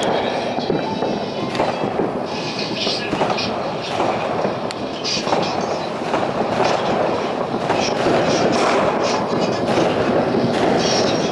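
Dense barrage of New Year fireworks and firecrackers going off all over the city, many bangs and crackles merging into a continuous rumble.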